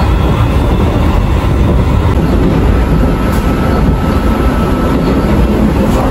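Commuter train running at speed, heard from inside the passenger car: a loud, steady rumble of wheels on the track. A faint high whine holds for a few seconds in the middle.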